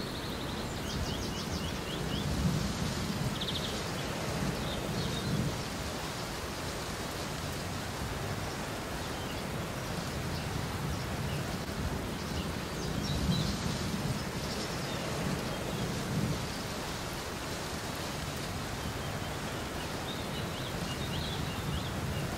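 Artificial rain falling steadily, a constant hiss of water pattering on surfaces, with heavier low rumbling spells now and then.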